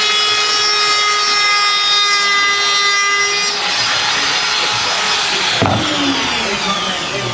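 Handheld electric router running with a high-pitched whine, then cutting into wood with a rougher grinding noise. About five and a half seconds in it is switched off and its whine falls away as the motor spins down.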